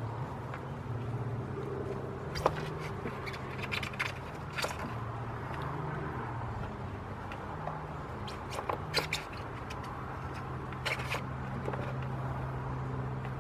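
A plain-edged Buck pocket knife cutting through a thick piece of rubber-lined fire hose: irregular scraping strokes with sharp clicks, over a steady low hum.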